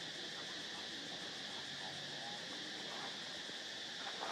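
Steady, high-pitched chorus of insects, with a few faint clicks near the end.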